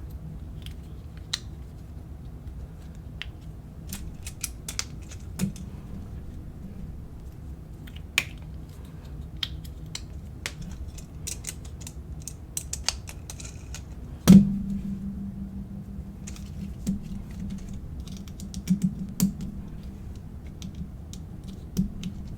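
Small plastic Lego pieces clicking and snapping as wheels, tires and small parts are pressed onto a model truck, in scattered irregular clicks. A single louder knock comes about 14 seconds in.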